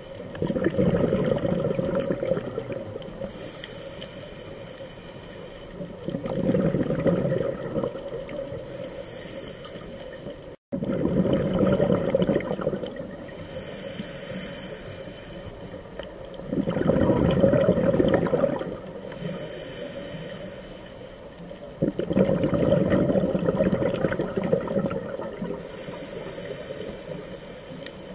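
A scuba diver breathing through a regulator underwater: five loud rushes of exhaled bubbles, each two to three seconds long, about every five to six seconds, with a quieter hissing inhale through the regulator between them.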